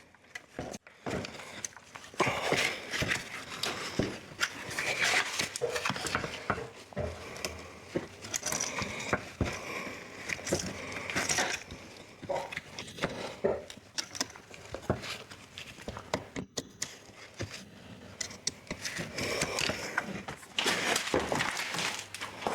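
Irregular small clicks, taps and rustling of car parts being handled, such as plastic clips and connectors being worked loose.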